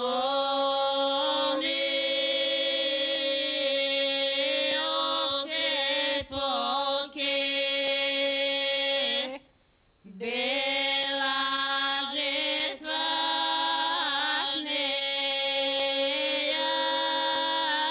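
Unaccompanied voices singing a traditional Macedonian harvest song in long, drawn-out held notes, the melody moving over a steady low note. It breaks off for a breath about nine and a half seconds in and then resumes.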